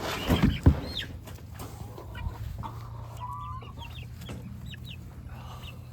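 Chicks peeping in short, high, falling chirps, with hens clucking in lower notes. A few loud thumps in the first second.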